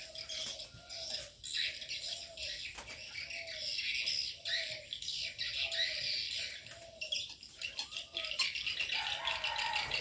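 Aviary birds calling together: a busy, high chirping and twittering over a low, short coo-like note repeated about twice a second from the doves.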